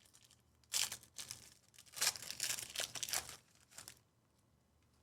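Foil trading-card pack being torn open and its wrapper crinkled: a short burst about a second in, then a longer rustle from about two seconds in that stops shortly before the end.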